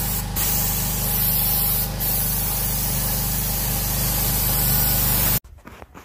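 Compressed-air paint spray gun spraying paint: a loud, steady hiss over a low steady hum, dipping briefly twice in the first two seconds. It cuts off abruptly about five and a half seconds in.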